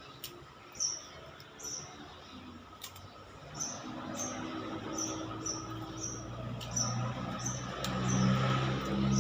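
Short, high chirps repeating about twice a second, typical of a small bird calling. Under them is a low droning hum that grows louder in the last two seconds.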